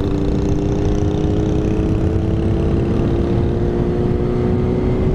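Honda CBR600RR's inline-four engine running at speed, its note rising slowly and steadily, under heavy wind rumble on the helmet microphone.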